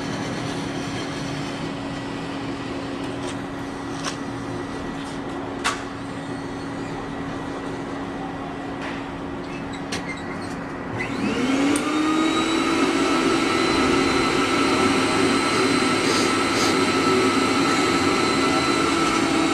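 Ice cream vending machine's suction-cup pick-up mechanism running with a steady hum and a few faint clicks. About halfway through a motor starts with a rising whine and settles into a louder steady drone as the suction arm tries again to lift the ice cream.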